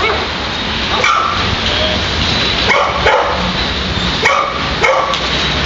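Shepherd dog barking at the decoy during protection training: a handful of loud, high-pitched barks and yelps, irregularly spaced about a second apart.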